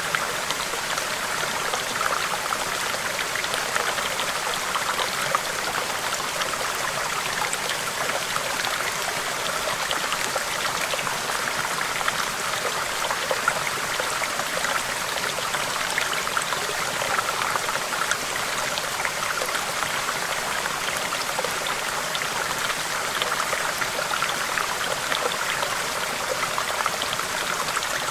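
Gentle stream babbling over rocks: a steady, even rush of flowing water with fine splashes and trickles throughout.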